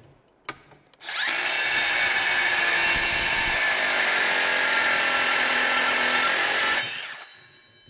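Makita cordless brushless metal-cutting circular saw spinning up about a second in and cutting through a clamped steel plate, a loud, steady, high screeching cut lasting about five and a half seconds, then winding down as the blade comes free.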